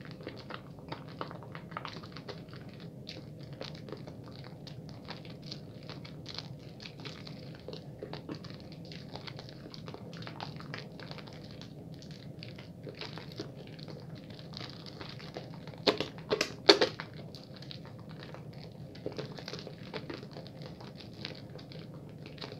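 Wet bar soap being lathered quickly: dense crackling, rubbing lather sounds, with three louder strokes in quick succession about two-thirds of the way through.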